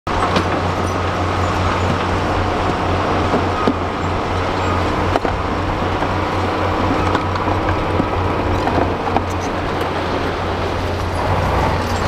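Heavy diesel engines of a dump truck and a crawler bulldozer running steadily with a low drone, while rock and soil pour out of the truck's raised tipper bed with scattered sharp knocks.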